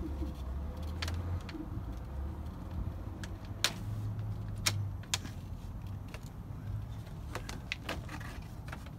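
Vinyl skirting panel being worked into the mobile home's base rail by hand, giving irregular sharp plastic clicks and rattles, over a low steady rumble.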